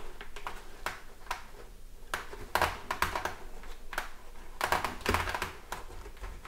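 Hands pressing the fabric-covered foam padding into a motorcycle helmet's shell: irregular light clicks, taps and scuffs, some in quick clusters.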